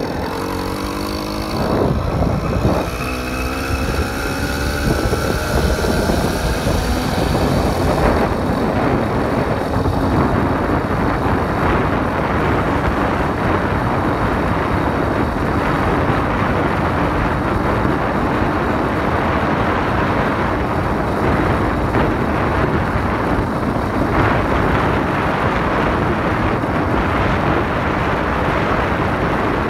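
80cc motorized bicycle engine revving up as the bike accelerates, its pitch climbing over the first eight seconds or so. It then runs steadily at speed under heavy wind noise on the microphone.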